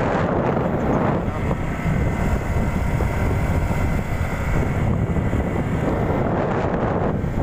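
Wind buffeting the microphone on a moving motorcycle, over the steady rumble of its engine and tyres on the road.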